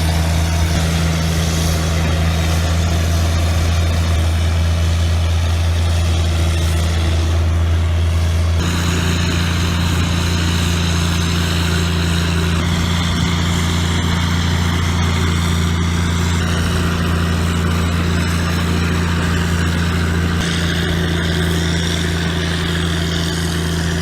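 Heavy engine of a large rotary snowblower running steadily under load, with a loud, even low drone. About nine seconds in the sound changes abruptly and then runs steadily on.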